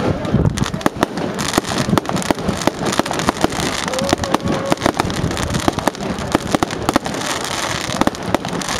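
Aerial fireworks display: a dense, continuous run of sharp bangs and crackling from many shells bursting in quick succession.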